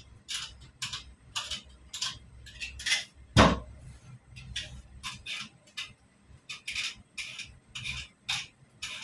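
Hand-peeling vegetables: short scraping strokes of the blade along the skin, about two a second, with one heavy thump about three and a half seconds in, like a vegetable set down on the wooden chopping board.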